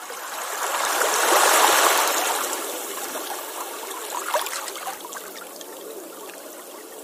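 Rushing water, swelling to its loudest about a second and a half in and then fading to a softer trickling and gurgling.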